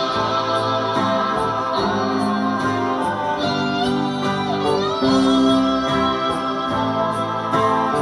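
Strummed acoustic guitar and a man's singing over a backing track, with drums ticking steadily about twice a second and a bass line underneath.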